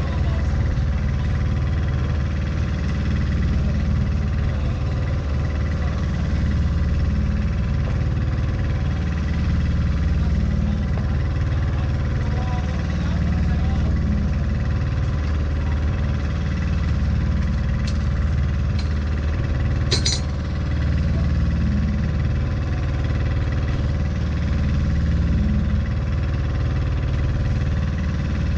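A fishing boat's engine running steadily. One sharp click comes about twenty seconds in.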